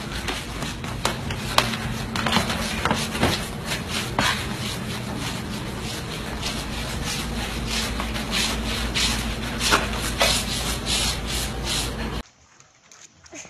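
A flat mop head with a corgi puppy clinging to it, dragged across a hardwood floor: steady rubbing and scraping with frequent short scuffs. It cuts off abruptly near the end.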